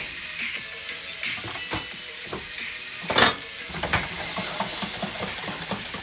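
Shrimp sizzling in a hot pan, a steady frying hiss, with a few clinks and scrapes of a utensil against the pan, the loudest a little past three seconds in.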